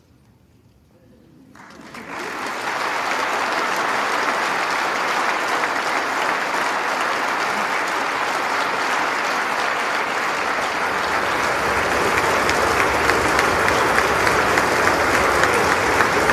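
Applause from the members of Congress and guests filling the House chamber during a joint session. It starts about a second and a half in, builds within a second to a dense, steady clapping, and grows a little louder near the end.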